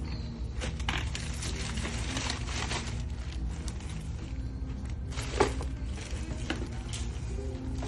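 Store background: a steady low hum with scattered rustling and light clicks of goods being handled, and one sharper click about five and a half seconds in.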